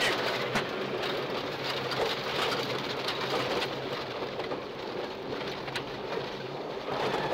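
Inside a Subaru Impreza rally car at speed on gravel: a steady hiss of gravel spraying and pattering against the underside and wheel arches, with scattered sharp stone clicks, over the engine running at steady revs.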